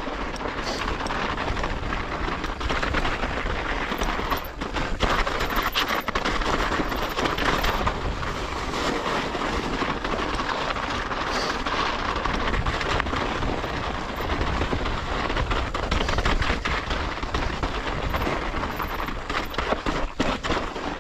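Mountain bike descending a snowy, rocky trail: a continuous rattle and clatter of the bike over rough ground, with many sharp knocks and tyre noise through the snow.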